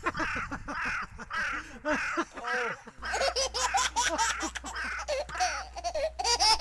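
Excited human voices with repeated laughter-like cries rather than clear words. About three seconds in, a steady low hum joins them.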